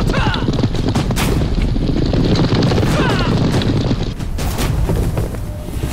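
A group of horses galloping hard: a dense, rumbling drumming of many hoofbeats, with riders' shouts near the start and again about three seconds in.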